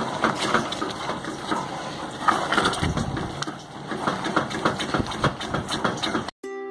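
Pink silicone spatula stirring chocolate cream in an aluminium saucepan, with quick irregular scraping and clicking against the pan. Near the end the sound cuts off and ukulele music begins.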